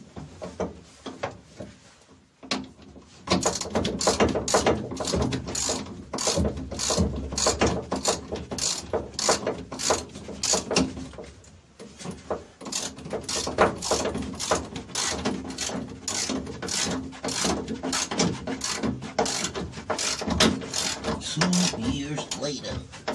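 Hand ratchet wrench clicking in quick, repeated strokes as a bolt on a suspension brace bar's mount is run down. There is a short pause about halfway through.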